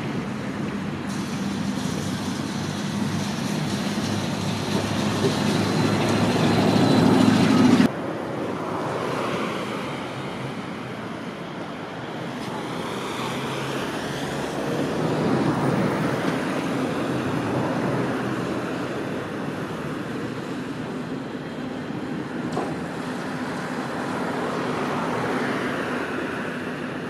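Street traffic and tram noise at a tram stop. First a KT4SU tram at the platform, its steady hum growing louder until a sudden cut about eight seconds in; then an Electron T3L44 low-floor tram approaching and pulling in to the stop over passing traffic.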